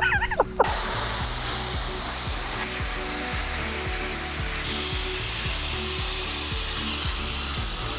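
Background music with a steady beat over an even hiss of water spraying from a hose.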